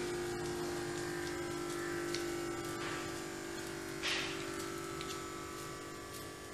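Small electric air pump of a non-invasive blood pressure (NIBP) module running with a steady buzzing hum as it inflates the arm cuff at the start of a measurement. A brief noise cuts in about four seconds in.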